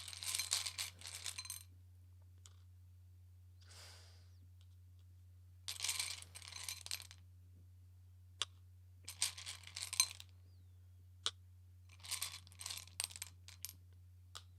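Tarot cards being shuffled and handled in four short spells of crackly rustling and flicking, with a few single sharp clicks between them, over a faint steady low hum.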